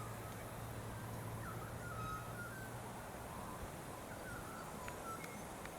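Small birds chirping and twittering over steady outdoor background noise, with a low hum that fades out about halfway through.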